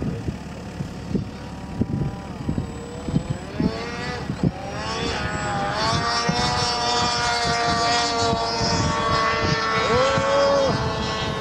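Remote-control model airplane's motor and propeller whining as it flies past, the pitch dipping and rising with throttle and passes, then holding higher and louder through the second half. Gusty low rumbles of wind on the microphone run under it.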